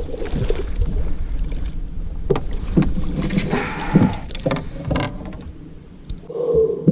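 Scattered knocks and clatter aboard a small fishing boat over a steady low rumble, with a louder burst near the end.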